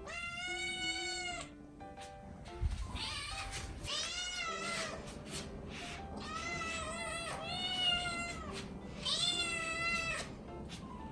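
Hungry kitten meowing loudly, about five long drawn-out meows one after another, demanding food. Background music plays underneath.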